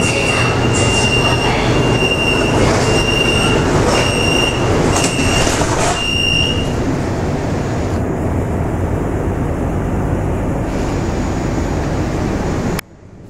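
Metro train door-closing warning beeps, a high tone repeating quickly for the first six or so seconds over the car's rumble. The beeps stop and the subway train's running noise carries on as it pulls away from the station. The level drops off suddenly near the end.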